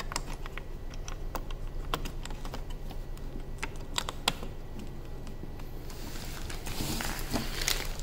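Scattered sharp plastic clicks and taps as a small plastic module is pushed into a slot on a Makita XGT vacuum cleaner's control panel and the panel is pressed, the loudest click about four seconds in. Denser rustling and knocking from handling near the end.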